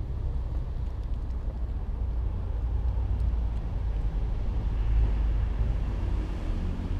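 A steady low rumble, loudest about five seconds in, with a few faint ticks above it.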